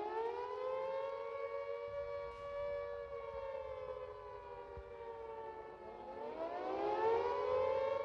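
Air-raid siren wailing on a two-note chord: it winds up to a steady pitch, sags a little, then winds up again about six seconds in.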